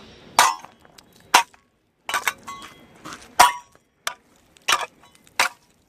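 Homemade ice chipper, an old circular-saw blade on a metal pipe handle, striking and chipping ice. It gives a series of sharp, clinking strikes, roughly one a second, each with a brief metallic ring and ice breaking.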